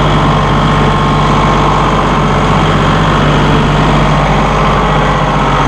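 Massey Ferguson 1740M compact tractor's three-cylinder 1.7-litre Shibaura diesel engine running steadily.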